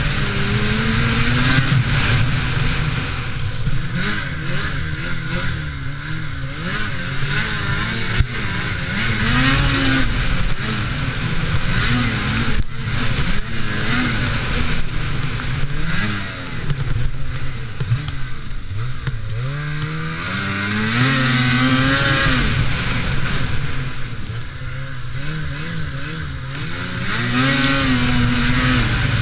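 Lynx Rave RE 850 E-TEC snowmobile's two-stroke twin engine under way, revving up and falling back several times as the throttle is opened and eased, over a steady rush of track and wind noise.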